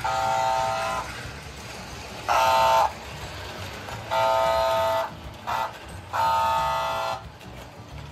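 Horn of an American Flyer Silver Streak toy diesel locomotive sounding five buzzy blasts: three of about a second and two shorter ones, the second blast the loudest. Under the blasts the train runs with a steady low rumble on the track.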